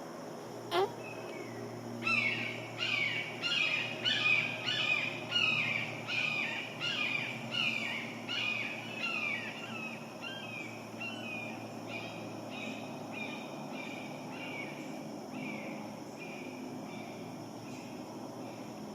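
A bird calling a long series of repeated downslurred whistled notes, about two a second, loudest a few seconds in and then fading away. A single sharp click comes about a second in.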